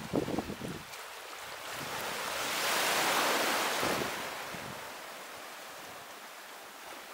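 A wave breaking and washing up the shore, swelling to a peak about three seconds in and then fading away. Wind buffets the microphone in the first second.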